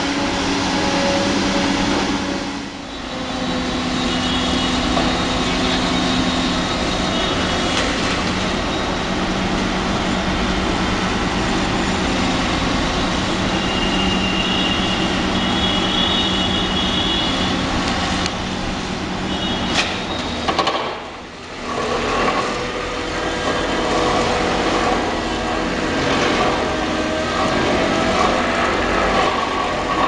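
Excavator-mounted vibratory hammer (vibro sinker) driving steel sheet piles into the ground, over the excavator's running diesel engine: a loud, continuous mechanical drone. It dips briefly about three seconds in and again about twenty-one seconds in.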